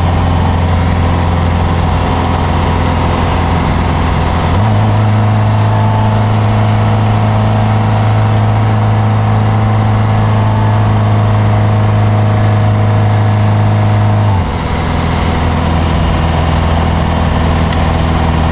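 Triumph Dolomite Sprint's 2.0-litre 16-valve slant-four engine running under steady load, heard from inside the cabin. The engine note steps up slightly about four and a half seconds in, holds steady, then drops back with a brief dip in loudness at about fourteen seconds.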